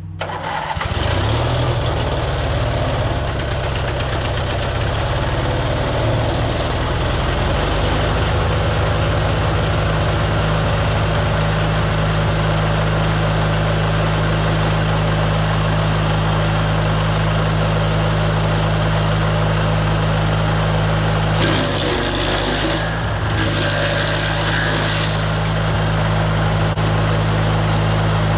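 DR wood chipper's gasoline engine starting up, uneven for the first several seconds, then running steadily at speed. A few seconds of added rushing noise come about three quarters of the way through.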